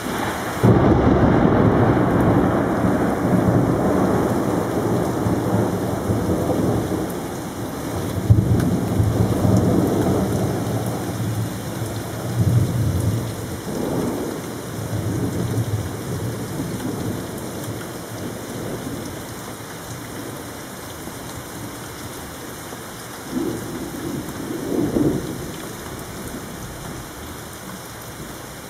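Thunder in heavy rain: a loud thunderclap breaks about a second in and rolls on for some ten seconds, followed by shorter rumbles around the middle and one more near the end, all over the steady hiss of rain.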